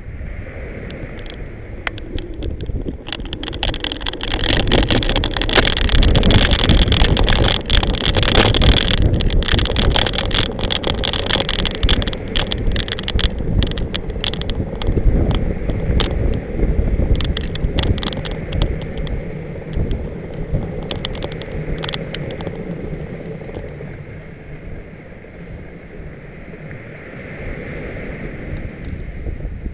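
Wind buffeting the microphone of a camera on a moving kite buggy, with rattling and knocks from the buggy running over beach sand. Loudest and busiest for the first half, then easing off.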